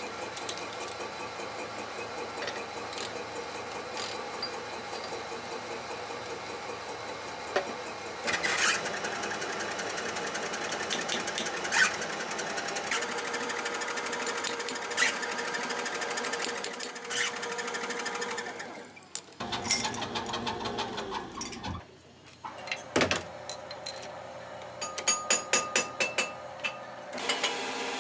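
Machine-shop machinery running with a steady mechanical whir, rhythmic clatter and occasional sharp clicks. About two-thirds of the way through it winds down, falling in pitch, and there is a run of rapid clicks near the end.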